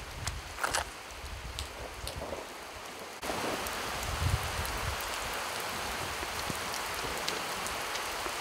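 Rain falling, with sharp single drops ticking close by. About three seconds in it jumps abruptly to a louder, more even rain hiss, and a brief low thump comes about a second later.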